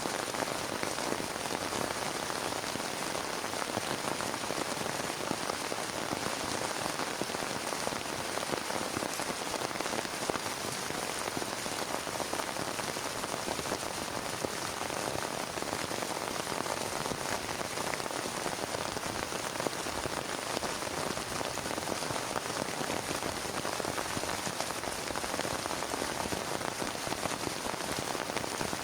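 Heavy rain falling steadily and hitting a plastic tarp, a dense, even hiss of countless small drop impacts with no thunder.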